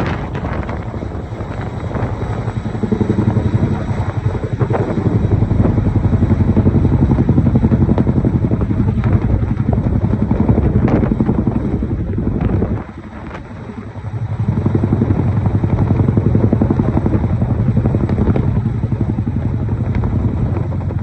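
Chinook tandem-rotor helicopter with its rotors beating in a fast, steady pulse. The sound swells about three seconds in, drops away briefly past the midpoint, then comes back up.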